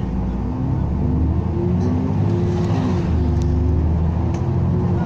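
Alexander Dennis Enviro400 double-decker bus engine and drivetrain running under way, heard from inside the upper deck. Its low drone carries a pitched note that steps up and down in pitch every second or so.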